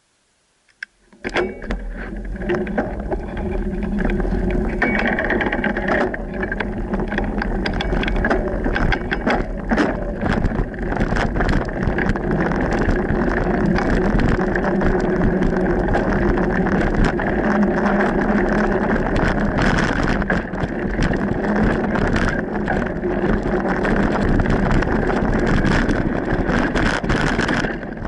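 Mountain bike riding on a dirt singletrack, heard from a camera mounted on the bike or rider: a loud, steady rush of tyre and trail noise with many sharp clicks and rattles over bumps. It starts suddenly about a second in.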